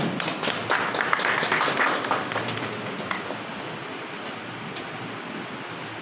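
Scattered hand clapping from a small group, densest in the first two or three seconds, then dying down.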